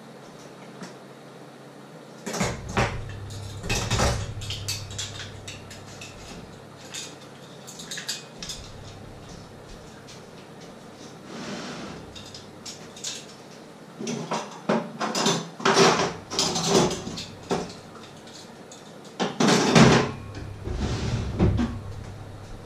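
Kitchenware being handled: irregular knocks and clatter of pots, lids and dishes, starting about two seconds in and coming in clusters, loudest near the end.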